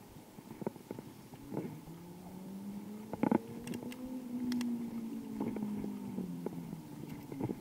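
A motor vehicle's engine hum, rising slowly in pitch and then falling over several seconds as it passes. Scattered knocks and rattles go with it, one sharper knock about three seconds in.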